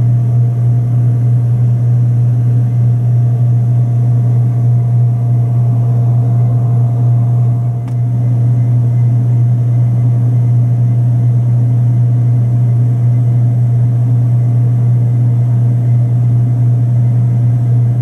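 Loud, steady low mechanical drone with a faint higher tone above it, unchanging throughout.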